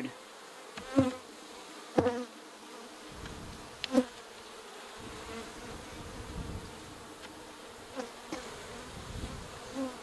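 Honeybees buzzing in a steady hum around an open Langstroth hive, a colony the beekeeper finds more defensive than usual. Several short, sharp, louder sounds stand out in the first four seconds, and one more near the end.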